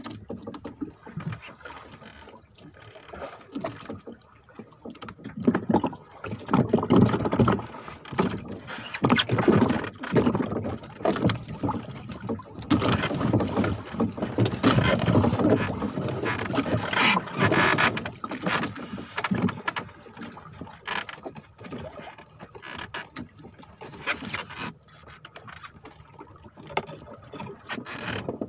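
Splashing and irregular knocks and rustling on a small fishing boat as the fisherman works with his hands at the side of the hull, busiest through the middle stretch and quieter toward the end.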